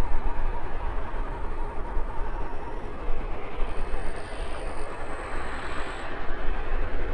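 Rumbling noise of a Korean Air Airbus A220 airliner, heavy and uneven in loudness, with a faint high whine between about four and six seconds in.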